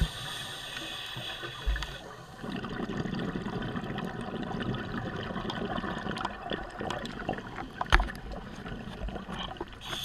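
Scuba breathing heard underwater: a hiss from a regulator for the first two seconds, then a long gurgling rush of exhaled bubbles, with scattered sharp clicks, one louder near the end.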